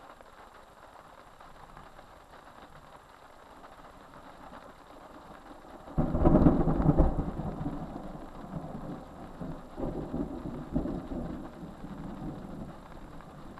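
A thunderclap breaks in suddenly about six seconds in, rumbling and fading, then rolls again a few seconds later and dies away, over a faint steady hiss.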